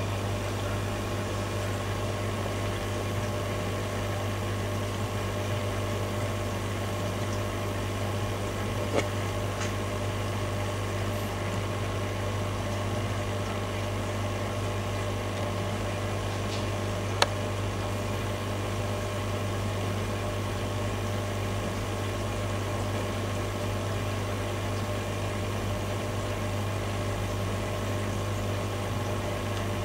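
Steady low mechanical hum with a strong deep drone, running evenly throughout, broken by two sharp clicks about nine seconds and seventeen seconds in.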